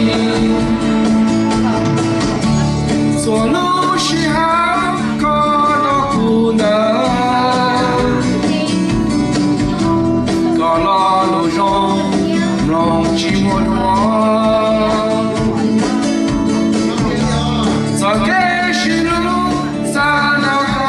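A man singing a Hmong song into a microphone through a PA, holding and bending long notes over instrumental backing music.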